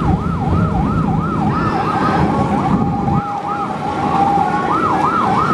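An electronic siren wailing up and down in pitch about three times a second. It settles into a steady wavering tone for a couple of seconds in the middle, then swings again near the end. A boat engine runs low underneath and eases off about three seconds in.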